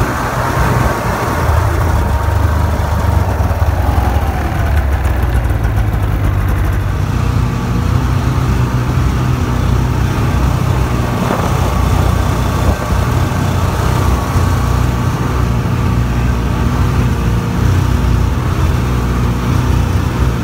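Snowmobile engine running steadily while riding along a trail.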